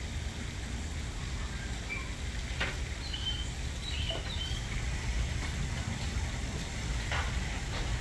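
Backyard ambience: a steady low rumble with a few short, high bird chirps about two to four seconds in, and two brief rasping sounds, one just before the chirps and one near the end.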